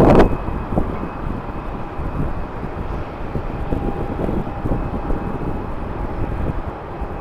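Jet airliner engines running at a distance, a steady rumble with a faint whine, after a gust of wind buffeting the microphone that dies away just after the start.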